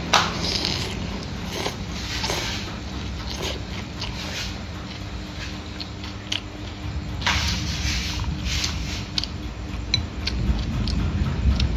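Chewing a mouthful of food close to the microphone, with wet mouth sounds and crisp crunching bites at irregular intervals. A steady low rumble runs underneath and grows louder near the end.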